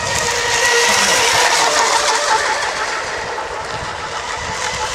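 Model racing boats running flat out on a pond, making a steady high motor whine over a constant hiss.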